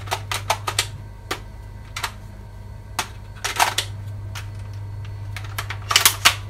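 Plastic clicks and rattles of a D'cobra M-AK47L spring airsoft AK-47 as its curved magazine is fitted and the gun is handled. There is a quick cluster of clicks at the start, single clicks about a second apart, and further clusters around three and a half seconds and near the end, over a steady low hum.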